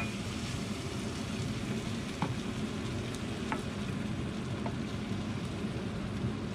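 Beef stock poured into a hot frying pan of caramelized onions and flour for onion gravy, sizzling steadily as a wooden spoon stirs it, with a few light taps of the spoon against the pan.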